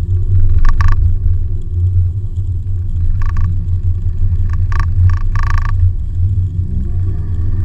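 Perodua Bezza's 1.3-litre 1NR-VE engine and tyre road noise heard inside the cabin at highway speed: a steady low drone, broken by a few short sharp ticks. Near the end the engine note rises as it picks up revs.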